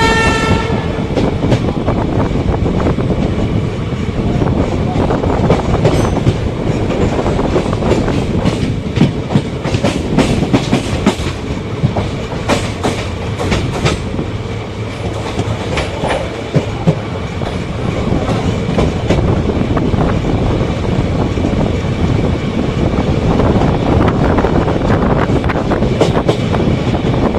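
Passenger train running at speed: the steady rumble and clickety-clack of steel wheels on the rails, with a dense run of sharp clacks from about 5 to 14 seconds in. The WAP5 electric locomotive's horn cuts off less than a second in.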